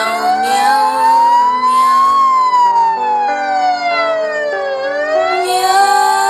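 Wailing siren, its pitch rising slowly for about two seconds, then falling for about two and a half, and starting to rise again near the end. Steady lower notes sound beneath it and shift in steps.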